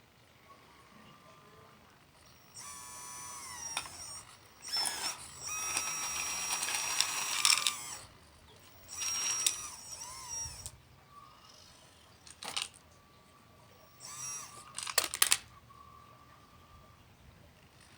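Small electric motors of radio-controlled construction models whining in repeated bursts, the pitch rising and falling as they work, with a couple of sharp clicks.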